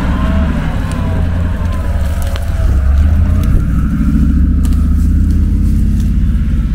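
Off-road SUV engine running steadily under load while driving through rough terrain. It gets louder about three seconds in, and a few sharp clicks or knocks come through.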